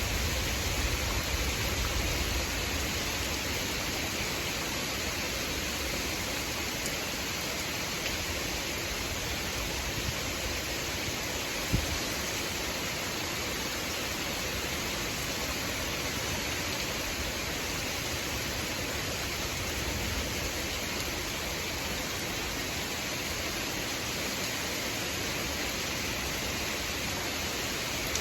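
Steady rain pouring during a thunderstorm, an even hiss. A low rumble dies away in the first couple of seconds, and there is a single sharp tap about twelve seconds in.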